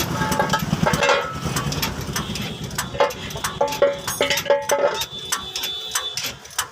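Metal tools clinking and knocking on truck engine parts, with a low rumble in about the first second and a few short metallic rings a few seconds in.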